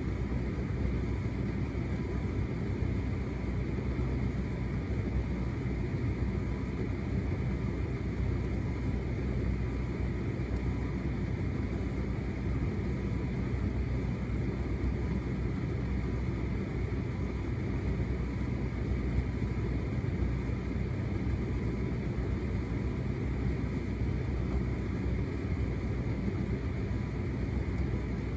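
Hotpoint SUTCD97B6PM condenser tumble dryer running steadily, its drum turning with a load of clothes tumbling inside, giving an even low hum from the motor and fan.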